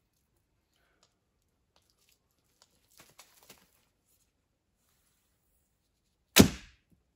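Traditional recurve bow shot: faint rustles as the arrow is nocked and drawn, then, about six seconds in, the bowstring is loosed with one loud, sharp snap that dies away over about half a second.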